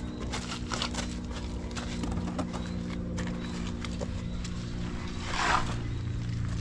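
Steel shovels scraping and clinking in loose gravel as it is scooped into buckets, with scattered knocks and footsteps on gravel, and one louder scrape about five seconds in. A steady low hum runs underneath.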